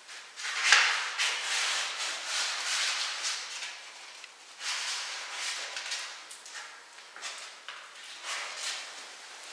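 Steel plastering spatula scraping over joint compound and joint tape on plasterboard, an uneven series of scraping strokes as the tape is pressed and smoothed onto the wall.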